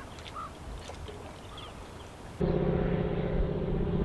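A few faint bird calls over quiet outdoor air, then, from about two and a half seconds in, the loud steady drone of a floatplane's engine and propeller flying overhead.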